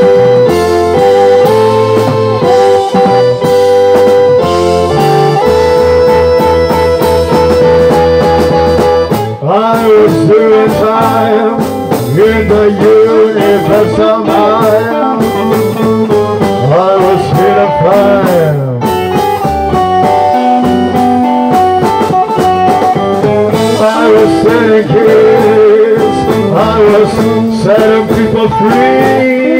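Rock band jamming: electric keyboard chords, drum kit and electric guitar. About nine seconds in, a lead line with bending, wavering pitch comes in over the chords.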